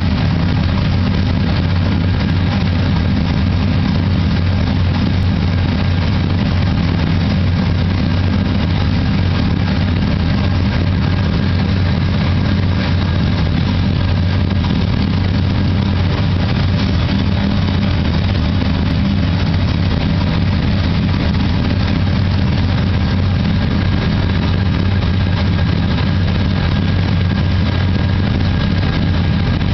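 Quarter-scale Visible V8 model engine running at idle with its sound effects on, giving a steady, low V8 idle rumble that doesn't change throughout.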